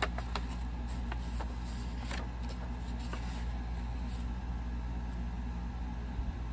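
A folded paper sheet rustling and crinkling as it is taken out and unfolded, with a few sharp crackles in the first three seconds or so, over a steady low background hum.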